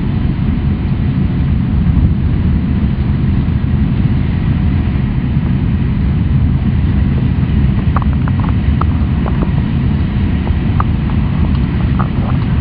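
Steady rumble inside the cabin of an E6-series Super Komachi Shinkansen running at high speed, with faint scattered ticks and rattles in the second half.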